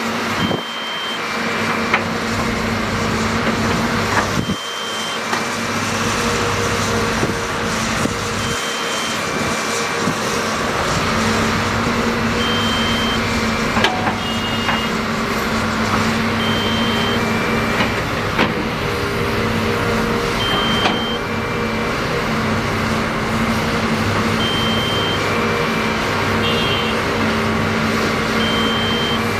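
Diesel engines of hydraulic excavators running steadily under load, with a two-note electronic warning alarm, a higher beep then a lower one, repeating about every four seconds. A few sharp knocks are heard around the middle.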